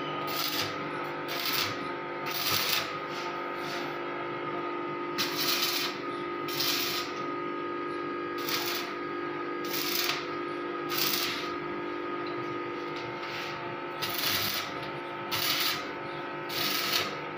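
Electric arc (stick) welding on a steel frame: the arc crackles and sizzles in short spurts of under a second, struck again and again at irregular intervals, as with tack welds, over a steady hum.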